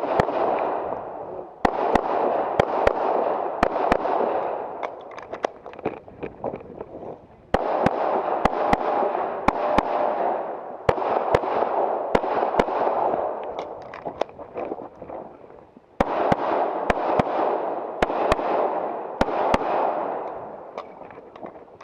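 Handgun shots fired in rapid strings during a USPSA course of fire, dozens of sharp reports in clusters with short pauses between, each followed by a lingering echo.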